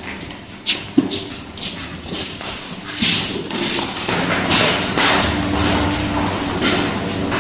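A backpack being rummaged through on a classroom desk: rustling of the bag and its contents with scattered knocks of things against the desk, the sharpest about a second in. A low rumble joins about five seconds in.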